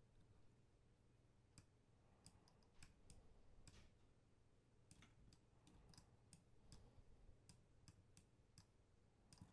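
Faint computer mouse clicks, well over a dozen at irregular intervals, over a faint steady low hum.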